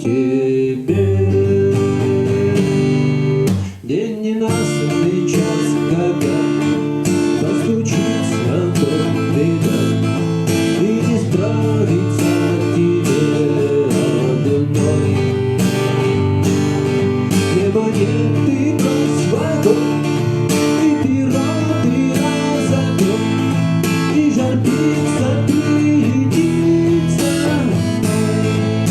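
Fender CD-60 acoustic-electric guitar strummed and played through an active speaker, picked up by a magnetic soundhole pickup plus microphone. Steady chords with a short break about four seconds in.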